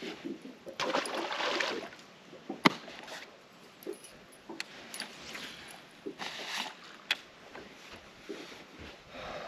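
A bass dropped back into the lake, splashing about a second in. This is followed by a few sharp knocks and clicks on the boat deck, the loudest just under three seconds in.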